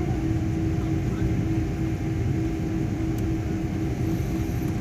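Airliner cabin noise: a steady low rumble with a constant hum running through it.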